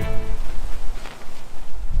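Guitar background music cuts off shortly in, leaving a gusty low rumble of wind buffeting the microphone.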